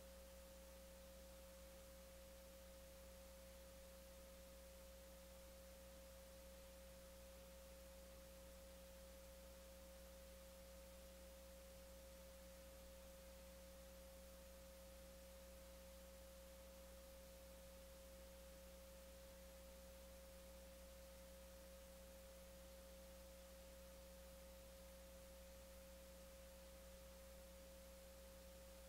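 Near silence, with a faint steady tone that does not change at all.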